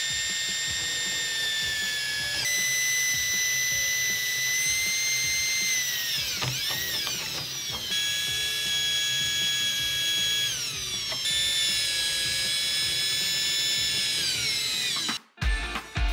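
Cordless drill-driver tightening the jack screws under a tub deck valve. Its motor whines steadily, shifting pitch several times and winding down twice as the trigger is eased. Near the end it cuts abruptly to guitar music.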